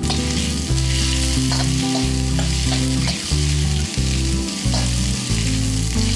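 Sliced onion and garlic sizzling in hot oil in a steel wok as a perforated metal skimmer stirs them, with background music underneath.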